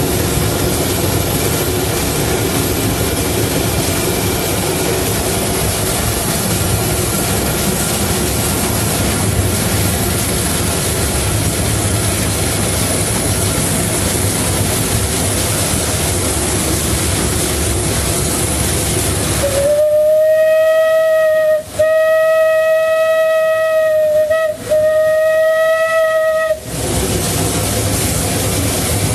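Disneyland Railroad steam locomotive Ward Kimball running, heard from the cab as steady running noise. About twenty seconds in its steam whistle sounds three long blasts with only short breaks between them, lasting about seven seconds, and then the running noise carries on.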